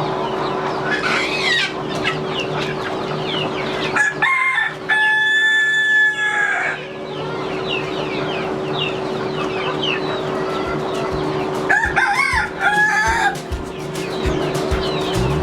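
A flock of chickens clucking and calling, with a rooster crowing: one long held crow about four seconds in and a shorter one near twelve seconds. A steady low hum runs underneath.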